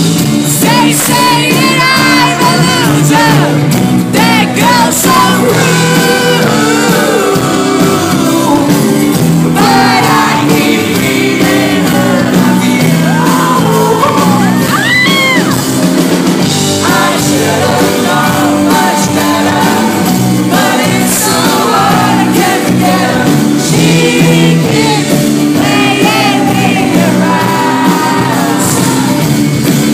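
Pop-rock band playing live: a male lead vocal over acoustic guitar and drums, with shouts and singing from the audience mixed in.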